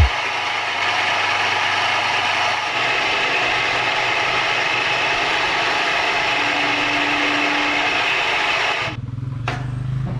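A metalworking power tool running steadily under load with a harsh mechanical noise. It stops abruptly about nine seconds in, leaving a low hum.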